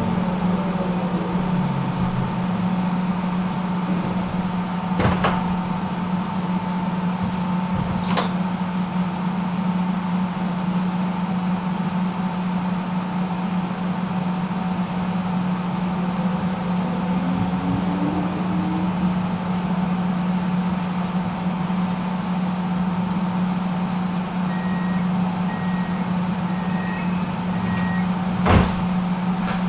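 Tram running between stops: a steady low electric hum with a fainter higher tone above it, a short rising motor whine partway through, and a few sharp knocks, the loudest near the end. A string of short high beeps sounds late on.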